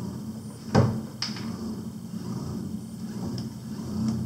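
Submerged robotic fish's motor drive running with a steady low hum; the motor has shifted off centre and is rubbing. A sharp knock about a second in.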